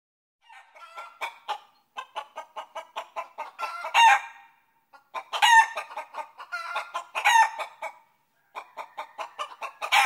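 Chicken clucking in quick runs of short notes, with louder drawn-out calls about four, five and a half and seven seconds in, and again at the end.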